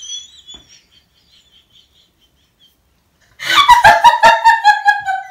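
A high, squeaky sound fades out in the first half second, then near quiet, then high-pitched squealing laughter breaks out about three and a half seconds in, in quick rapid pulses.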